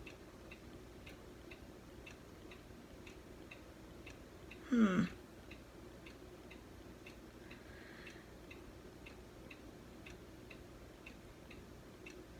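Faint clock ticking evenly, about twice a second. About five seconds in, a brief louder sound slides down in pitch.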